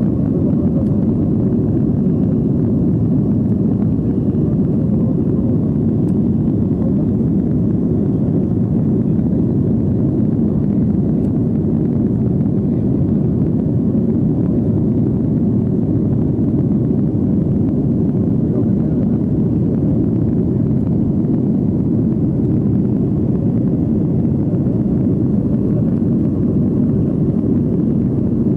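Steady low rumble of a Boeing 757-200's engines and rushing air, heard inside the passenger cabin during the climb after takeoff.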